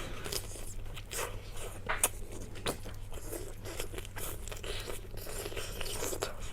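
Close-miked eating: biting and chewing with irregular wet mouth clicks and smacks, over a steady low electrical hum.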